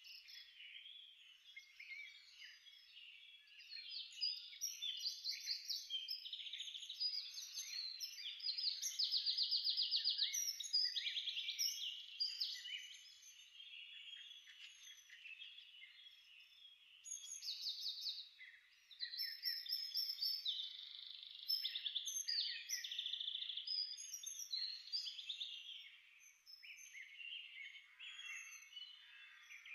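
Many small songbirds chirping and trilling at once, their high notes overlapping in fast repeated runs, loudest about a third of the way in.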